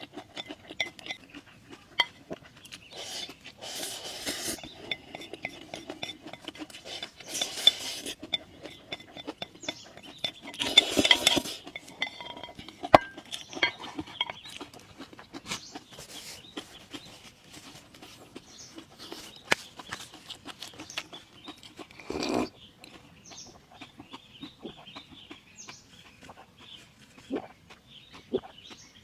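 Utensils clinking and scraping against a dish in scattered short clicks, with a few louder, noisier stretches.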